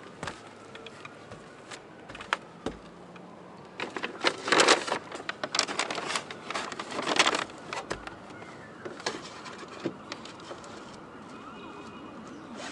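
Handling noise from hands working with parts: scattered clicks and knocks, with two louder stretches of rustling and scraping about four and six seconds in.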